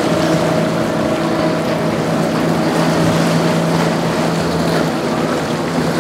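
Twin Yamaha 225 outboard engines on a Robalo R260 center-console boat running at speed: a steady engine drone over the hiss of the hull cutting through choppy water.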